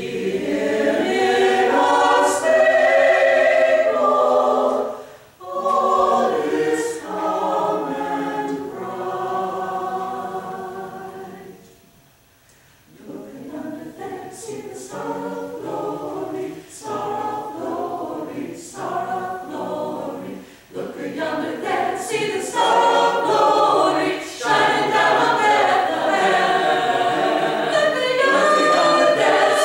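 Mixed choir of men and women singing a cappella, with a woman singing in front of them. The singing pauses briefly about twelve seconds in, returns quieter, and grows fuller and louder toward the end.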